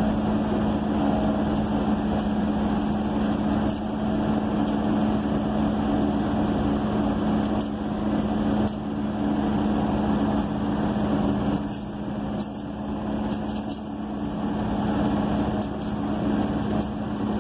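Caterpillar motor grader's diesel engine running steadily, heard from inside the cab. A few light clicks come about two-thirds of the way through.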